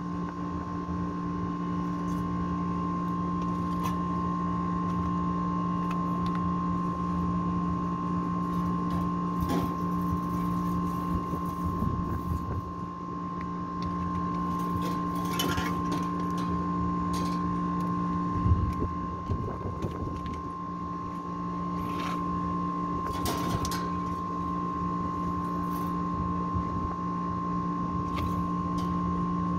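Steady hum of running machinery, with a constant high whine over it. Scattered metal clanks and knocks come from an air-conditioner condenser unit being handled, with a louder thump about eighteen seconds in.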